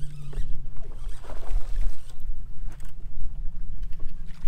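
Electric trolling motor humming steadily, its pitch stepping up about three and a half seconds in. Wind buffets the microphone, with a few short splashes and knocks.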